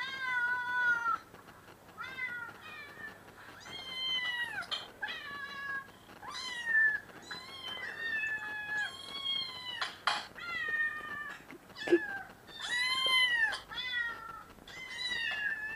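Kittens meowing over and over, a long series of high-pitched meows that each rise and fall in pitch.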